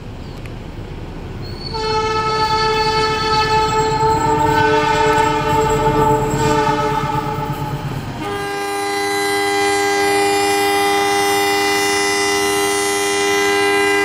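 Two long blasts of an Indonesian diesel locomotive's horn (the Semboyan 35 horn signal), each a steady chord of several notes. The first starts about two seconds in over the low rumble of the passing train and lasts about six seconds. The second follows straight after, without the rumble, and is held to the end.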